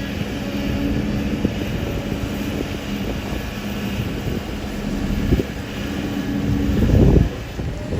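Kobelco hydraulic excavator's diesel engine running steadily under load, with a few short knocks and a heavier low thud about seven seconds in.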